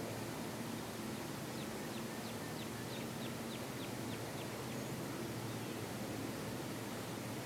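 A bird calling a quick series of about ten short, high, downward-slurred chirps, about three a second, starting a second and a half in and stopping after about three seconds, over steady outdoor background noise with a faint low hum.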